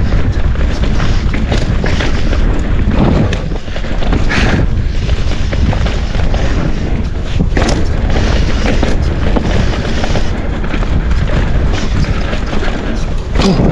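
Wind buffeting the camera microphone as a mountain bike rides down a dirt trail, tyres rolling and the bike rattling over the rough ground, with a few heavier knocks from impacts.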